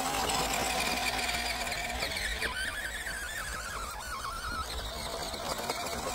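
Whine of a 1/12-scale MN78 Jeep Cherokee RC crawler's 280 brushed electric motor and gearbox as it drives. The pitch wavers and dips with the throttle, with a higher whine about two seconds in.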